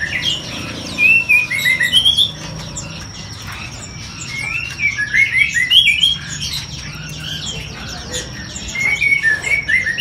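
Many caged songbirds chirping and calling at once: overlapping short rising and falling calls that come in bursts, loudest about a second in, around five to six seconds in, and near the end.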